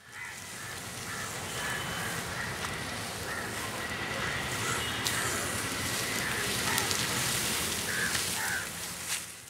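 Outdoor ambience: a steady hiss with scattered short bird calls and a few faint clicks.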